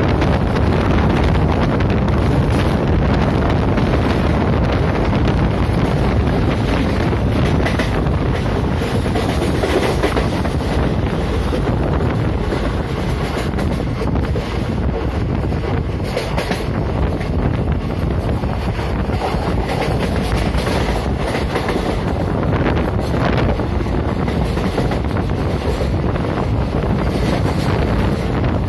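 Steady rush of wind on the microphone over the running noise of an express train's coaches on the rails at high speed, about 90–105 km/h, heard from the open coach door.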